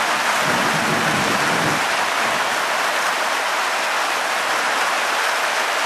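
Steady, heavy rain falling in a dense, even hiss as the downpour kicks in, with a faint low rumble under it for the first two seconds.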